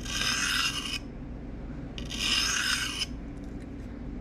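Pocket knife blade drawn along a sharpening stone: two scraping strokes, each about a second long, about two seconds apart.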